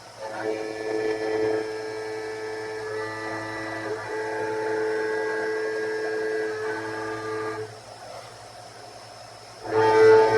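Helical endmill in the Syil X7 CNC mill cutting A36 hot-rolled steel, giving a steady, loud pitched whine of several tones for about seven seconds. After a short lull it cuts in again briefly near the end.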